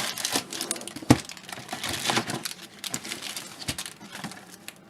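Crinkling of a trading-card pack's wrapper and cards being handled, with irregular rustles and small clicks and one sharper click about a second in.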